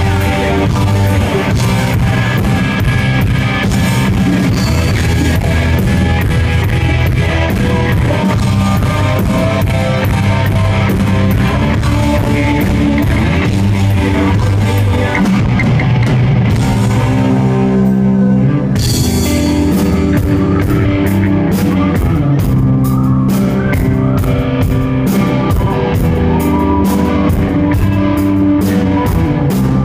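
Live rock band playing: electric guitar, bass guitar and drum kit. About eighteen seconds in the drums briefly drop out, then come back with a steady, even beat.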